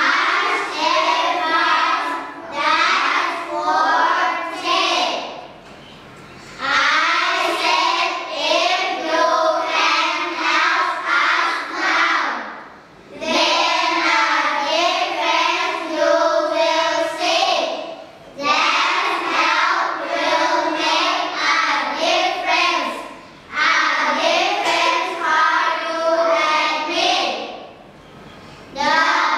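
A group of children singing a song together as a choir, in sung phrases with a short breath between each.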